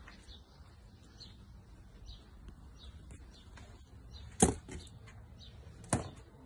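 Two sharp door clicks about a second and a half apart, the first louder, as a front door's handle and latch are worked to open it, over faint bird chirps.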